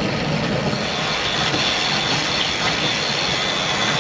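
Steady rushing wind and road noise on a bike-mounted camera as road bikes roll along, with a faint thin high whine coming in about a second in.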